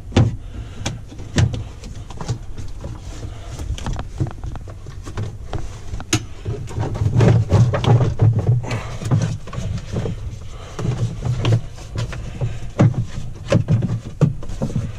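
Hard plastic center console of a Polaris RZR XP 1000 being worked loose and lifted out: irregular clicks, knocks and scraping of plastic on plastic, with dull thumps as it is handled and one sharp click about six seconds in.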